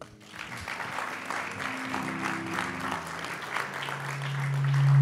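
Church congregation applauding, with a low held note from the church music swelling loud near the end.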